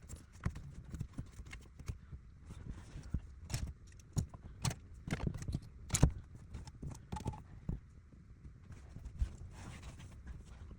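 Irregular knocks and clicks of hands and tools working on a car's plastic interior trim, the loudest knock about six seconds in.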